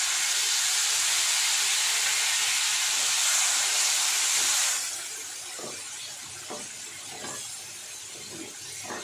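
Water poured into a hot kadhai of fried onions and spices, hissing and sizzling loudly as it turns to steam, dying down sharply about five seconds in to a quieter sizzle. A wooden spatula stirs the onions, with a few short scrapes near the end.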